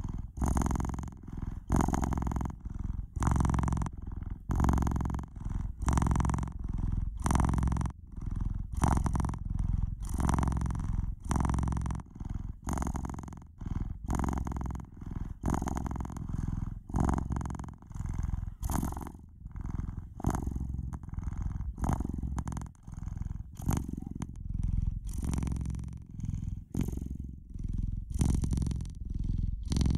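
Domestic cat purring close to the microphone: a noisy, low purr that swells and fades with each breath in and out, about once a second, in a steady rhythm.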